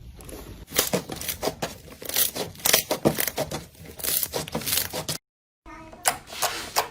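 Slime being squeezed and pressed by hand, giving a rapid, irregular run of sharp crackling clicks and pops. It breaks off completely for about half a second a little after five seconds in, then picks up again.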